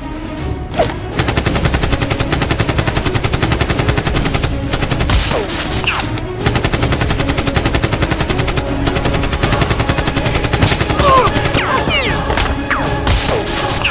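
Rapid automatic gunfire sound effects, a fast even run of shots with a couple of short breaks, over background music.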